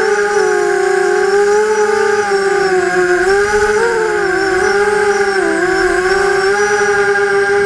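Vortex FPV racing quadcopter's brushless motors and propellers whining, heard from its onboard camera. The whine's pitch wavers up and down with the throttle, dipping and rising a few times.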